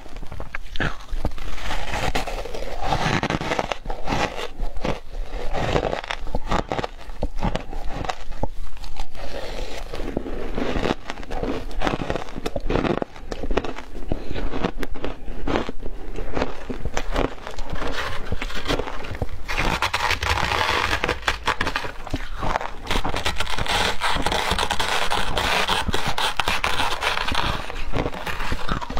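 Close-miked crunching and chewing of matcha-dusted shaved ice, a dense run of sharp crackles and crunches. Toward the end a metal spoon scrapes and scoops through the shaved ice in a plastic tub.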